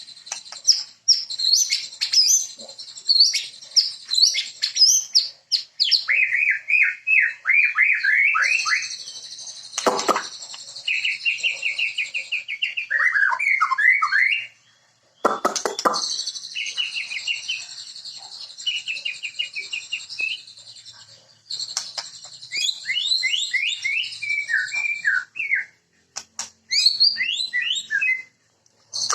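White-rumped shama (murai batu) singing a long, varied song of quick repeated trills, chattering phrases and falling whistles, with two loud sharp sweeping notes about a third and half of the way through and brief pauses between phrases.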